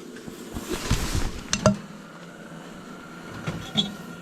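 A few sharp clinks and knocks, the loudest about a second and a half in, with fainter ones near the end.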